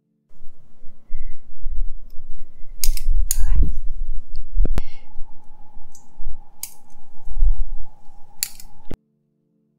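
A metal orthodontic instrument clicks sharply against the braces a handful of times as elastic ligature modules go onto the lower brackets, over a low rumble of close handling noise. A faint steady whine joins about halfway through, and all of it cuts off abruptly near the end.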